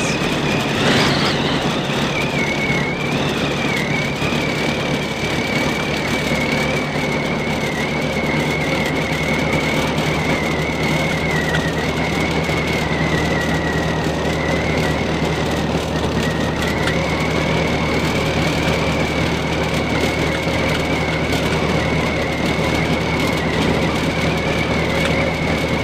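Car running along a snow-covered road in a blizzard, heard from inside the cabin: steady engine and road noise, with a thin high whistle that wavers slightly in pitch.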